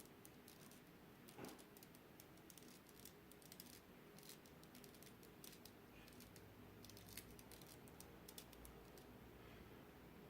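Faint, irregular clicking of a small plastic 3x3 puzzle cube's layers being turned quickly by hand during a solve.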